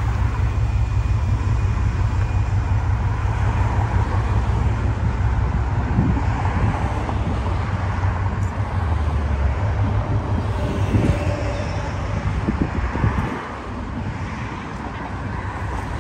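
City street traffic, with cars passing. A deep rumble under it eases off about 13 seconds in.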